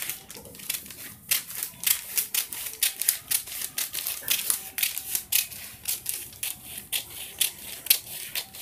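Scissors cutting through a sheet of paper, a steady run of crisp snips, about three a second.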